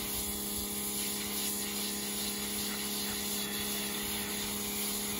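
Pressure washer running steadily: an even motor-and-pump hum with the hiss of the water jet spraying a van's floor carpet.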